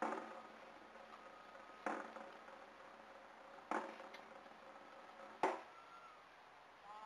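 Cannon firing a gun salute: four sharp reports a little under two seconds apart, each dying away quickly.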